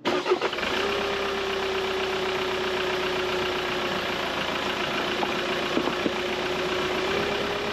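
Car running slowly along a narrow lane: steady engine hum with a constant whine that rises slightly near the end, and a few light knocks about five to six seconds in.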